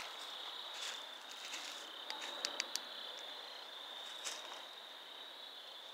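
Night insects trilling steadily as a continuous high chorus, with a few faint clicks and rustles of handling.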